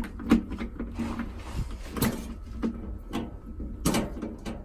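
Irregular clicks and knocks as screws are tightened with a screwdriver into a refrigerator's rear metal service panel, with the panel rattling under the work.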